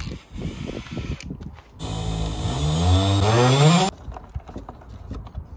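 Cordless drill motor run for about two seconds, its whine rising in pitch as it speeds up, then cutting off sharply. Before it come a few light clicks and knocks.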